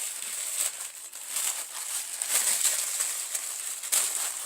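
Tissue paper rustling and crinkling as it is carefully unfolded, with small crackles throughout.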